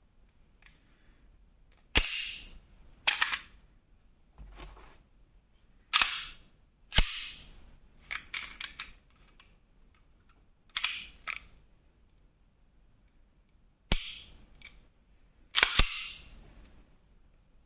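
Smith & Wesson M&P9 M2.0 Competitor pistol being worked by hand: a series of sharp metallic clacks of the slide snapping shut and the action clicking, some in quick pairs, at irregular intervals.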